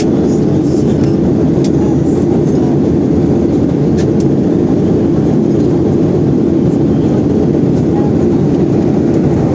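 Steady cabin noise of a Boeing 737-800 in flight, climbing toward cruise: an even, loud rumble of engines and airflow, with a few faint clicks.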